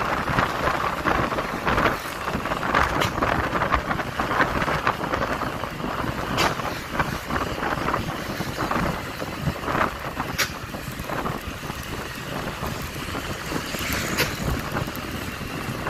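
Wind rushing steadily over the microphone of a moving motorcycle, with road and traffic noise underneath and a few sharp clicks.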